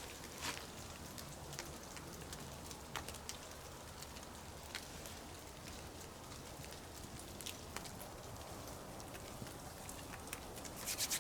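Faint, irregular patter of meltwater dripping from wet, snow-laden trees and rock, scattered single drops over a soft hiss. Near the end, a quick run of rubbing strokes starts.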